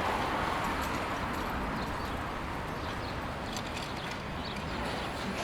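Street ambience: a steady city hum with scattered sharp clicks and, from a little over halfway in, short high chirps.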